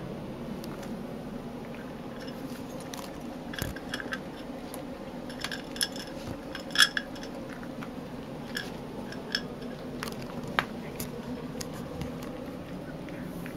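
Cats eating from bowls: chewing and crunching food, with scattered small clicks and a few ringing clinks against the bowl, the loudest about seven seconds in. A steady low room hum lies underneath.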